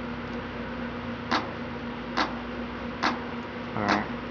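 A hand-clap drum sample from a Fruity Loops 6 step-sequencer pattern playing back through speakers, hitting on beats 2 and 4. The claps come at an even rhythm, about one every 0.85 s, over a steady electrical hum.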